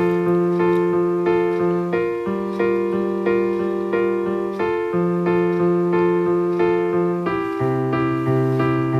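Background music: a piano-like keyboard playing an even run of notes, a new one about every half second over a held bass note that changes every two to three seconds.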